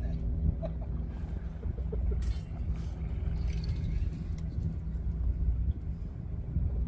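A steady low mechanical hum and rumble, with a few faint clicks.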